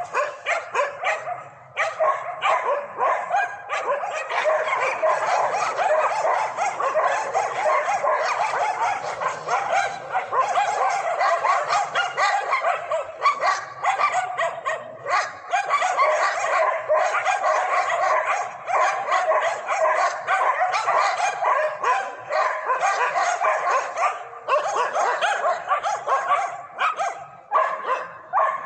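A pack of stray dogs barking together, many overlapping barks and yips without a break, apart from a short lull about a second and a half in.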